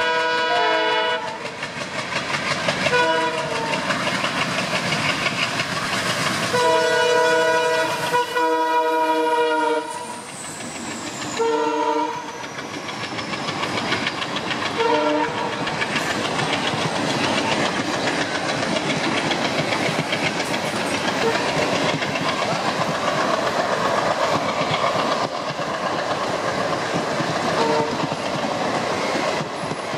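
Indian Railways diesel locomotive horns sounding as two passenger trains cross: a blast that stops about a second in, a short toot near three seconds, a long blast from about six to ten seconds, then a few short toots. After that comes the steady noise of passenger coaches rolling past close by, with wheel clatter over the rail joints.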